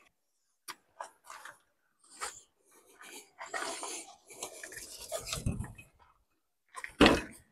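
Camping gear being handled: irregular rustling, scraping and rubbing, with a loud knock about seven seconds in.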